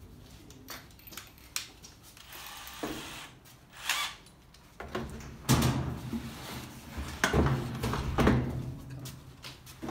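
Bosch cordless drill-driver being handled as a screwdriver bit is fitted, with a short whirr of the drill about four seconds in. From about five seconds come several loud clunks and knocks with a low hum under them, as the drill is set against the washer's metal back panel.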